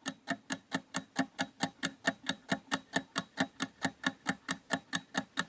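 Rapid, even ticking, about four to five ticks a second, with no music behind it.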